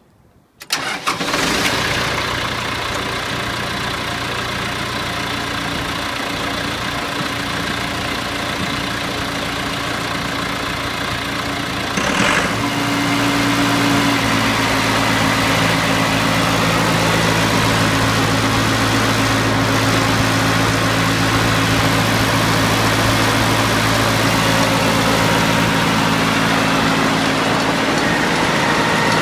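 Wood chipper starting up within the first second and then running steadily. About twelve seconds in it gets louder and settles into a steadier, higher hum, which holds to the end.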